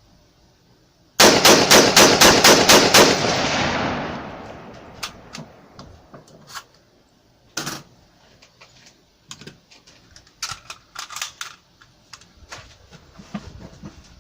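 Rapid-fire string of about ten shots from a WK180C .223 rifle, roughly five a second, with the report echoing away for about a second after the last shot. Scattered clicks and knocks follow.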